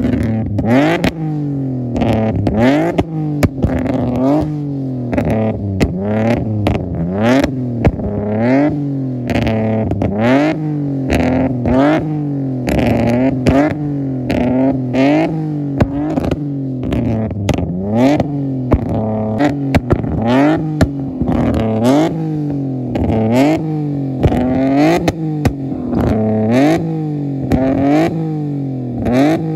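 A Nissan Maxima's 3.5-litre V6 is blipped again and again through a 3-inch ISR single-exit exhaust, each rev rising sharply and falling back, about one a second. Short sharp cracks come in between the revs.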